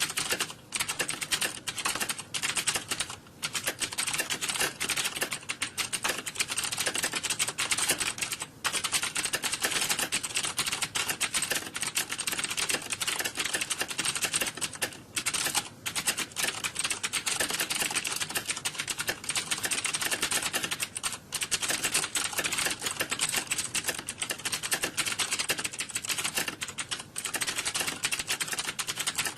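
Computer keyboard keys being typed on quickly and continuously, a dense stream of clicks with only brief pauses. It is the clatter of typing heard around a candidate in a typing exam hall.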